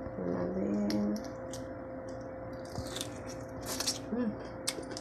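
Cooked shrimp being peeled by hand: scattered crackles and sharp clicks of the shell breaking and coming away, with wet squishing, in the second half. A short hummed voice sound about a second long comes near the start.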